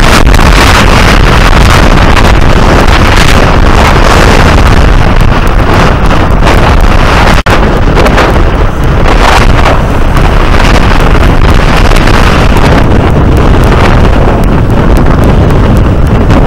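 Storm wind buffeting the microphone in a loud, continuous, gusty rumble, with heavy surf breaking on the rocky shore beneath it.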